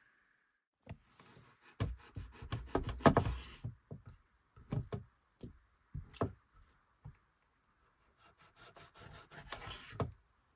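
Kitchen knife cutting raw meat on a wooden cutting board: irregular knocks of the blade against the board with some scraping, a quick run of strokes about two to three and a half seconds in and more near the end.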